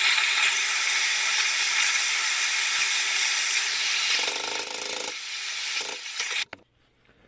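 Steady hissing from a heating tool warming a turbocharger bypass-valve part so that it shrinks onto its shaft. It cuts off suddenly about six and a half seconds in.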